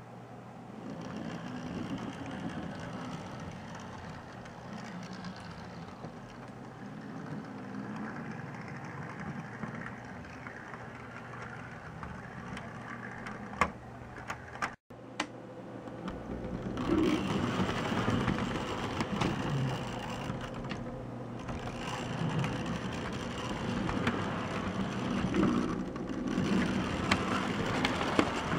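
HO scale 0-6-0 steam switcher model running on the track: its small electric motor whirs and its wheels clatter steadily, with a few sharp clicks. The sound gets louder after a brief dropout halfway through.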